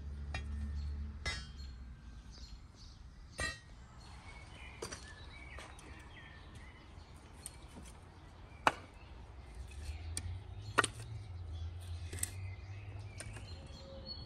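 Split firewood logs knocking against each other and the woodpile as they are pulled off the stack and gathered in the arms: a series of separate sharp wooden knocks, two of them louder near the middle.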